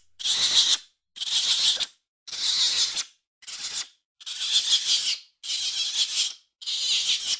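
Capuchin monkey calling: a run of about seven short, high, hissy squeals, each under a second, with brief gaps between them.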